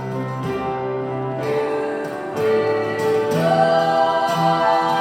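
Live song with wordless sung harmonies held on long notes over instrumental accompaniment, swelling louder about two and a half seconds in.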